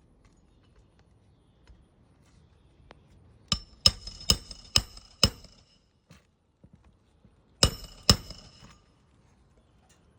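Hammer driving roofing nails into a replacement asphalt shingle: five quick strikes, a pause, then two more, each with a short metallic ring.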